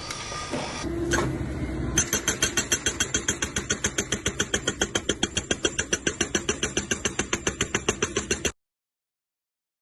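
An engine starting up and running with a fast, even chugging of about seven beats a second, which cuts off abruptly near the end and is followed by silence.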